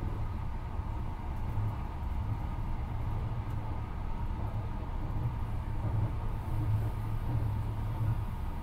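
Marine Liner electric train running at speed, heard from inside the passenger car: a steady low rumble of wheels on rail with a faint steady hum above it.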